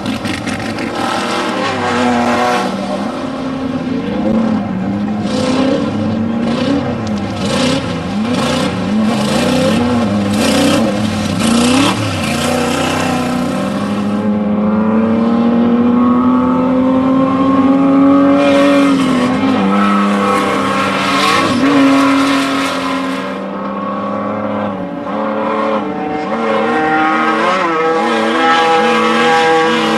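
Off-road desert race vehicles' engines revving and accelerating past, their pitch climbing and dropping as they shift, with more than one engine heard at once at times. About halfway through, one engine holds a long climb in pitch for several seconds before falling off. Rushes of hiss come and go with the engine sound.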